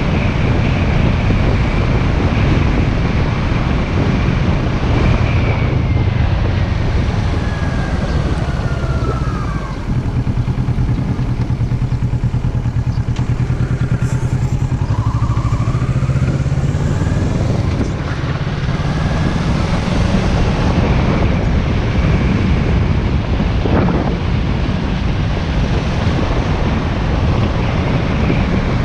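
Motorcycle engine running under way, with wind rushing past. About a quarter of the way in the engine's pitch falls and the sound dips briefly, then around halfway it climbs again as the bike picks up speed.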